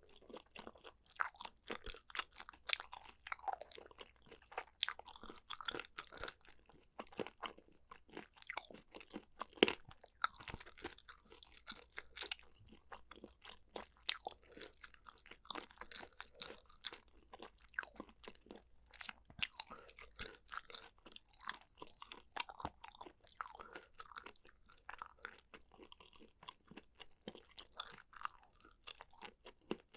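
Close-miked eating sounds: a person chewing and crunching food, with many small irregular wet clicks and crackles and no words.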